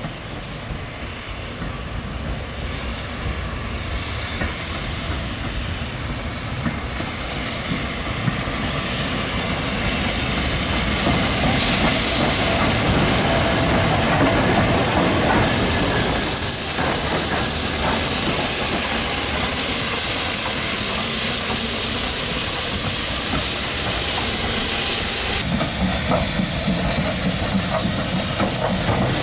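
A steam locomotive running tender-first, approaching and then passing close at low speed: hissing steam over wheels clicking on the rails. It grows louder over the first ten seconds or so and then stays loud.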